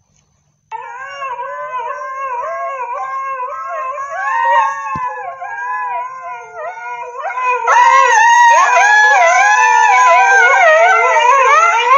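Husky howling long and loud, the pitch rising and falling in waves like a siren. It grows louder and fuller about two-thirds of the way through.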